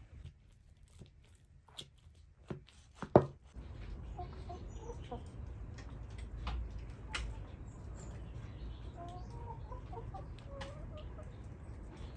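A few light clicks and one sharp clank, then an open-air background with hens clucking softly now and then.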